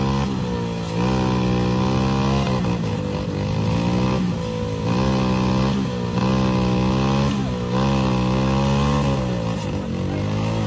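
Mini tractor engine under heavy load, its pitch repeatedly sagging and climbing back about every one and a half to two seconds as it strains to pull a fully loaded sugarcane trolley.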